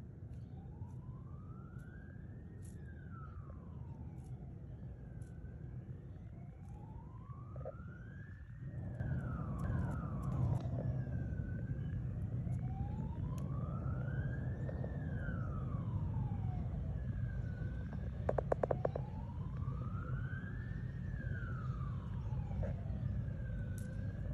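Emergency vehicle siren wailing, its pitch sliding slowly up and down about once every six seconds, over a low rumble that grows louder about nine seconds in. A short rattle of clicks cuts in about three-quarters of the way through.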